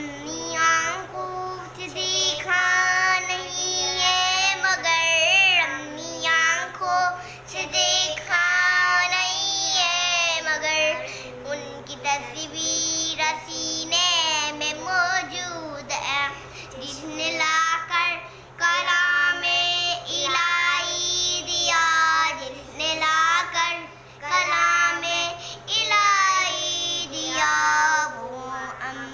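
A young child singing a naat, an Urdu devotional song, unaccompanied in long wavering phrases, over a steady low hum.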